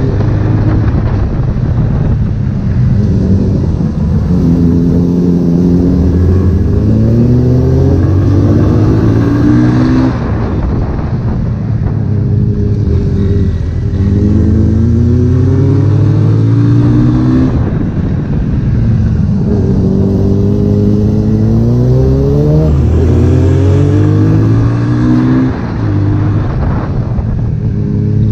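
Honda CB1000R inline-four engine pulling hard through the gears. The pitch climbs with rising revs and drops back at each upshift, with several runs of acceleration, over steady wind and road noise.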